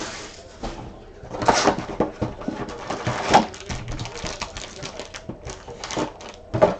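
Trading-card packs and cards being handled, with short crinkly rustles of foil wrappers and cards, the loudest about one and a half seconds and three seconds in.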